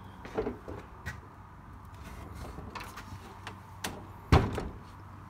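Knocks and rattles from a wheeled shop cart carrying a DeWalt benchtop planer as it is pushed into its spot, with one loud thump about four seconds in.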